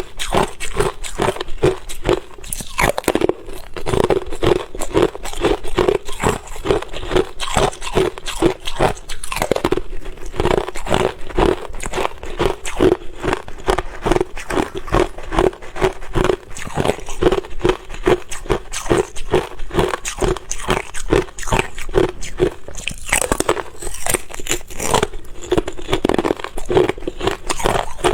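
Close-up crunching and chewing of hard ice, with rapid, continuous bites and grinding.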